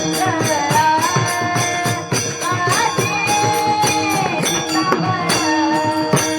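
A Marathi devotional abhang sung in the Warkari style. The singer holds and bends long notes over a steady drone, with a regular beat of jingling percussion.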